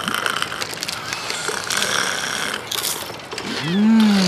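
Fishing reel being cranked, a fast run of ratchet clicks, then a drawn-out voice exclamation that rises and falls in pitch near the end.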